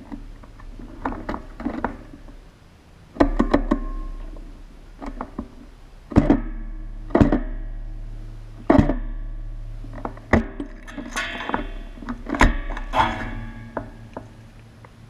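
Music on a plucked guitar: single struck notes and chords ringing out one at a time at an uneven pace, over a steady low hum.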